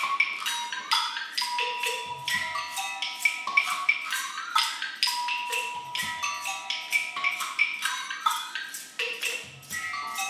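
A hand-percussion ensemble plays a repeating rhythmic pattern: dense clicks and knocks with short ringing pitched notes, some of them sliding upward, and a low drum thump every few seconds.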